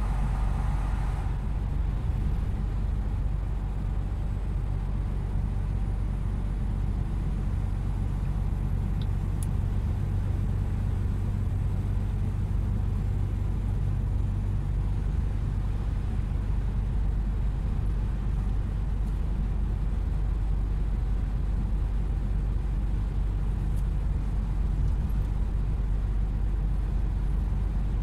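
Truck engine running steadily at cruising speed, heard from inside the cab, with a low hum under road and tyre noise. The road noise is louder for about the first second, while the truck is still in an underpass.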